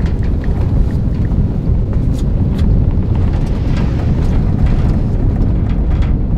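A vehicle driving slowly on a rough road, with a steady low engine and road rumble and a few light knocks.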